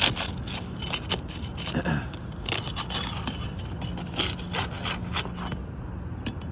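Roofing trowel scraping and prying under asphalt shingles to break their seal strips, in a run of irregular scrapes that die away about a second before the end.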